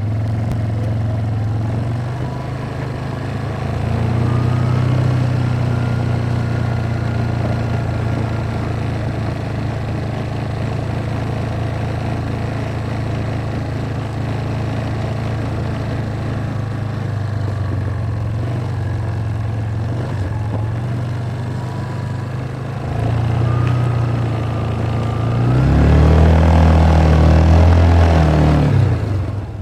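ATV engine running while riding, a steady drone that rises in pitch about four seconds in and again near the end, where it revs up and down several times.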